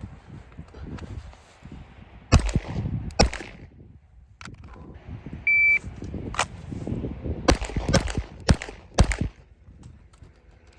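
Rifle shots from a 5.56 AR carbine with a 14.5-inch Geissele URGI upper: two shots about a second apart, then a short electronic beep like a shot timer's start signal, followed by a string of five shots.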